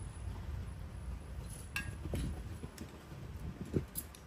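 A few light clinks and taps of eating utensils against dishes, scattered over a steady low background rumble.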